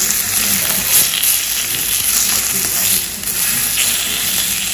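Venison slices and vegetables sizzling steadily on a hot cast-iron griddle over a tabletop gas stove.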